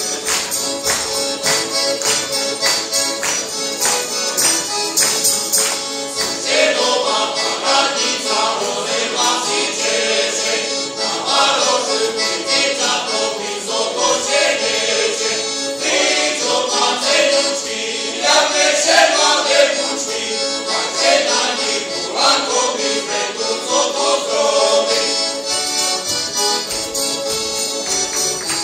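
An accordion plays a rhythmic folk accompaniment, and a male folk choir sings over it from about six seconds in. Near the end the singing stops and the accordion carries on alone.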